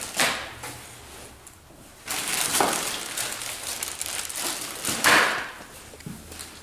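Plastic wrapping on ride-on toy car parts rustling and crinkling in bursts as the parts are handled, loudest about five seconds in.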